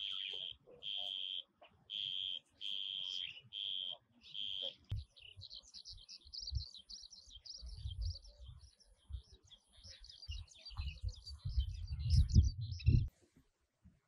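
Birds calling. For about five seconds a single high, even note repeats roughly every three-quarters of a second. It gives way to a rapid, high twittering chatter over low rumbling thumps, which grow loudest near the end, and the sound then cuts off abruptly.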